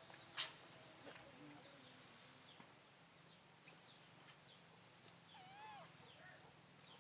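Faint small-bird twittering: a quick run of about eight high, falling chirps in the first second and a half, then a few scattered calls.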